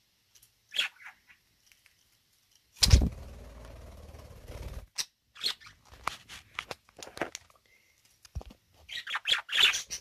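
Budgerigars chirping and chattering in short scattered calls, busiest near the end. About three seconds in, a sharp knock is followed by a low hum that lasts about two seconds.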